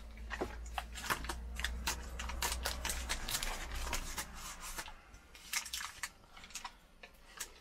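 Butter being rubbed around the inside of an oven dish: a run of light scrapes and small clicks, over a low hum that stops about halfway through.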